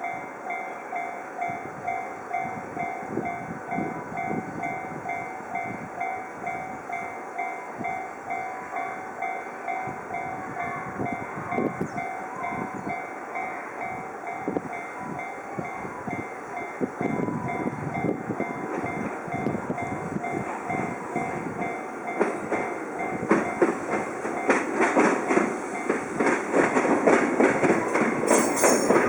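Japanese railroad crossing alarm ringing, an electronic two-tone ding repeating about twice a second. From about halfway through, a Choshi Electric Railway train grows louder as it approaches, and near the end its wheels clatter over the crossing, drowning the bell.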